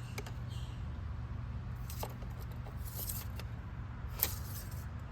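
Small metallic clicks and rattles from handling the oil dipstick while checking the oil level, with the sharpest click about four seconds in, over a steady low hum.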